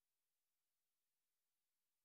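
Near silence: only a faint hiss, with the music stopped.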